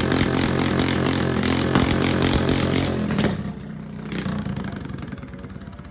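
An engine running steadily and loud, then dropping off sharply a little over three seconds in, leaving a quieter engine sound.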